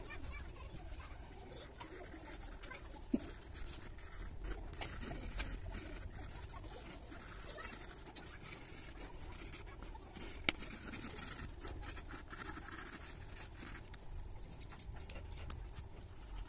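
Coloured pencil scratching across paper in quick, repeated shading strokes, with two sharp clicks, one about three seconds in and a louder one about ten seconds in.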